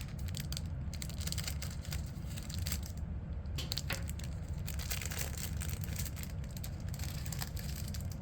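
The plastic wrapper of a 1989 Topps baseball card rack pack being torn open and crinkled by hand: irregular crackles and short rips, over a steady low hum.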